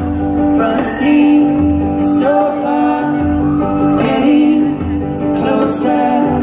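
Live acoustic band playing a song: acoustic guitar and a small strummed string instrument with upright bass, and voices singing the melody.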